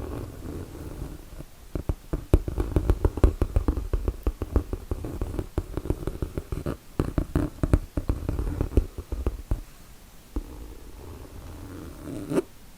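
Fingernails tapping rapidly on a bag, several quick taps a second, with slower scratching on the bag's surface before the taps begin and again after they stop near the end.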